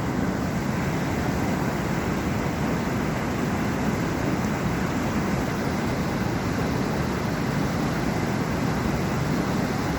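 Water pouring over a dam: a steady, unbroken rush, heaviest in the low end.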